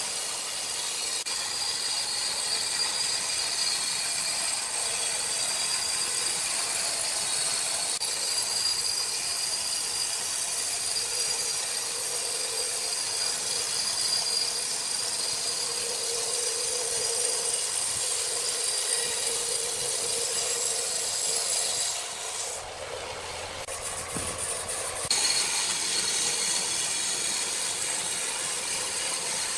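Sawmill machinery running steadily with a high hissing noise, broken by a short change in the sound about three-quarters of the way through.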